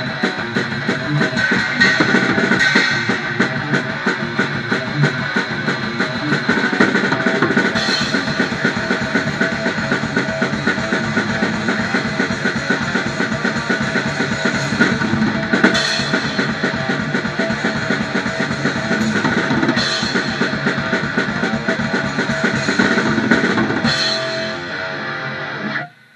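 Thrash metal played on electric guitar and drum kit: fast, dense drumming with cymbal crashes every few seconds under the guitar. Near the end the drums stop, the guitar rings on for about two seconds and then cuts off.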